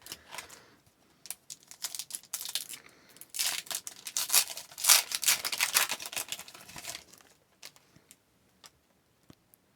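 Wrapper of a 2020-21 Upper Deck Series 2 hockey card pack being torn open and crinkled, followed by a few faint taps as the cards are handled near the end.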